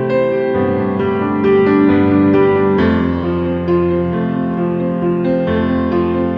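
Background music: a piano or electric keyboard playing a slow tune of sustained notes.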